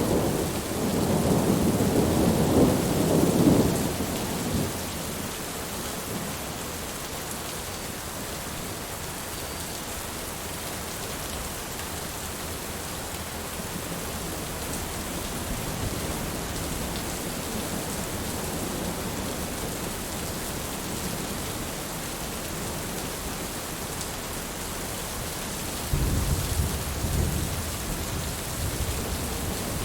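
Steady rain falling, with thunder rumbling twice: once over the first few seconds, and again starting suddenly near the end.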